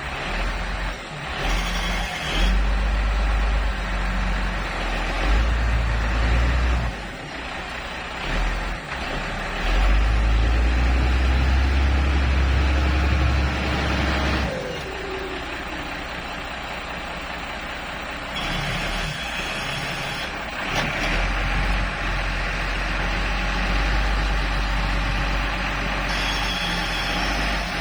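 Motor grader's diesel engine working hard under load, its revs rising and falling as the machine struggles to pull itself out of soft ground. About halfway through the revs drop in a falling glide.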